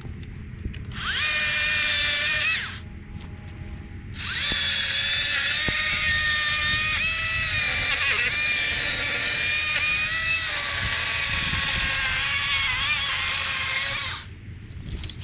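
Power saw cutting a tree branch in two runs: a short burst about a second in, then a long cut from about four seconds in until near the end. Its high whine sags in pitch each time it bites into the wood.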